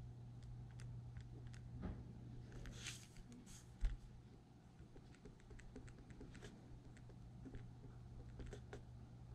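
Faint scratching and small ticks of a pen writing on paper lying on a wooden table, with one short knock just before four seconds in, over a steady low hum.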